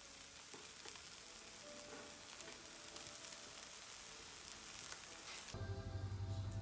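Battered shrimp pancakes (saeu-jeon) sizzling in oil on a flat griddle, a faint, even crackle. About five and a half seconds in the sizzling stops and a steady low hum takes over.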